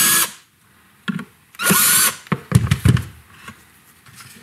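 Black+Decker cordless drill driving the buttstock plate screws into a rifle stock in two short bursts: one ends just after the start, the second comes about one and a half seconds in, its whine rising as it spins up. A few low knocks follow.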